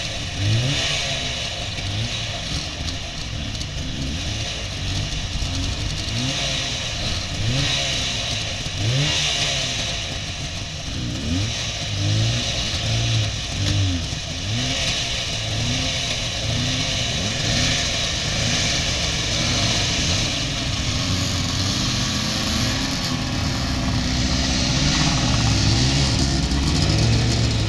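Small motorcycle-type engine of a Berkeley sports car running and being revved over and over, its pitch rising and falling every second or two. Near the end it settles into a steadier drone as the car drives off.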